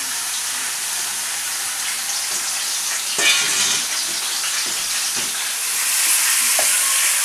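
Pieces of raw lamb shoulder sizzling in hot oil in a steel karahi as they are seared, with a louder surge of sizzling about three seconds in. A spatula stirs the meat around the pan in the second half, adding a few light knocks.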